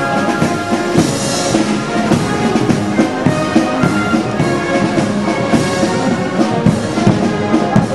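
Brass band music with drums, held brass notes over a steady beat.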